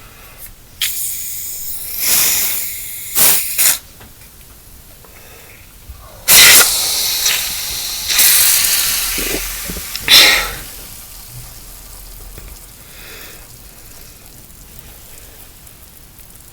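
Carbonated soda hissing and fizzing as it is opened: several short hisses in the first few seconds, then a louder, longer hiss from about six to eleven seconds in.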